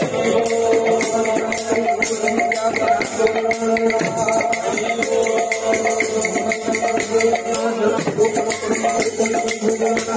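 Hindu devotional kirtan music: held drone tones under a quick, steady percussion beat, unbroken throughout.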